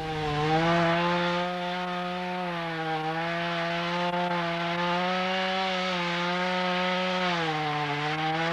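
Wood chipper running at full speed with a steady engine and rotor whine. The pitch sags slightly about two and a half seconds in and again near the end, then the sound cuts off suddenly.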